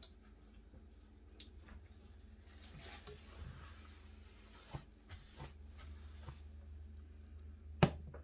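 Light handling noises of a saucepan on a glass-top electric stove: a few soft knocks and a brief scraping rustle, with a sharper knock near the end.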